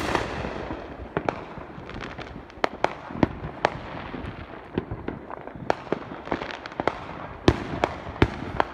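Neighbourhood fireworks going off: an irregular run of sharp bangs and pops over a low, continuous rumble of more distant bursts. A loud bang comes right at the start and another about seven and a half seconds in.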